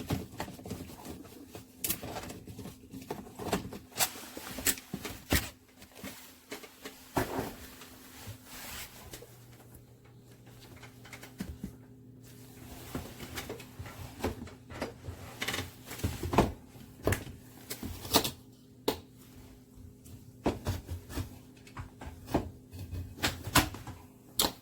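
Irregular clicks, taps and light knocks of hard plastic parts being handled on a dishwasher's touchpad control panel, over a steady low hum.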